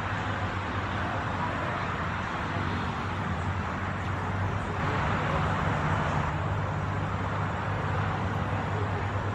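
Steady background noise: a low hum under an even hiss, swelling slightly about halfway through, with no distinct calls or knocks.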